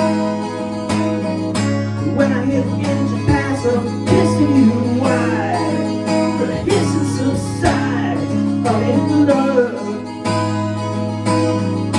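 Acoustic guitar strummed in a steady rhythm, with a melodic line moving over sustained chords.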